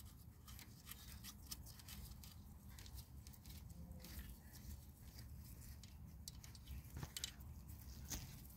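Faint handling noise: a nitrile-gloved hand rubbing and brushing against engine parts, with scattered small clicks.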